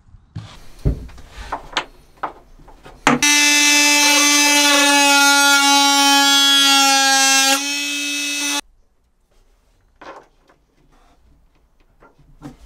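A few light knocks and clicks, then a Makita 18-volt cordless drill running steadily at one pitch for about four seconds, dropping to a softer run for about a second before it cuts off suddenly. Faint knocks follow.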